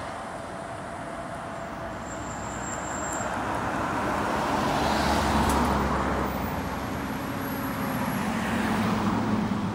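Road traffic passing: a camper van and cars drive by, their tyre and engine noise swelling to its loudest about halfway through, easing, then rising again near the end.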